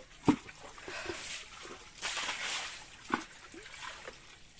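Shallow muddy water splashing and sloshing as hands grope for fish in a drained ditch and a plastic bucket is handled. A sharp knock comes just after the start, the loudest sound, and a smaller one about three seconds in.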